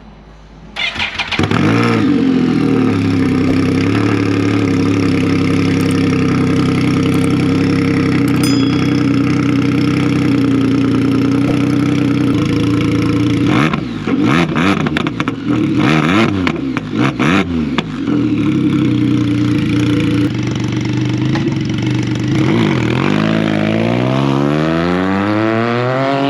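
Can-Am Spyder F3's Rotax 1330 ACE inline three-cylinder engine, fitted with an RLS Punisher exhaust and RLS cat delete, starting up and running loud at idle. It gets a few quick throttle blips in the middle and a long rising rev near the end.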